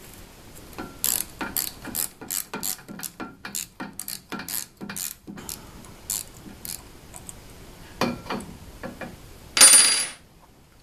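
Metal clicks and rattles, irregular, about two or three a second for several seconds, from fitting a mounting bracket onto a CNC router's ball screw nut with a hex key. Near the end there is one brief, louder metallic rattle with a high ring.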